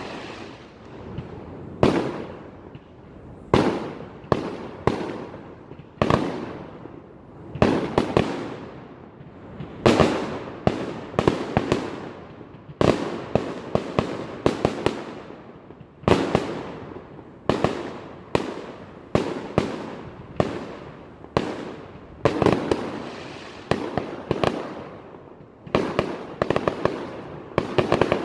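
Aerial fireworks shells exploding one after another, roughly every one to two seconds, each bang trailing off slowly, with quick runs of crackling pops in between.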